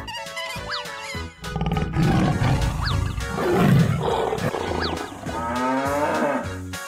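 Cartoon background music with a lion's roar sound effect from about a second and a half in, loud and rough. A drawn-out, wavering moo follows near the end.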